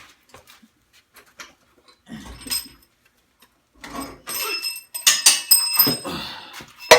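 Metal clanking and scraping as a cast-iron cylinder head is worked loose and lifted off a Ford 351 Windsor V8 block: faint clicks at first, then from about four seconds in a run of sharp clanks with a high metallic ringing.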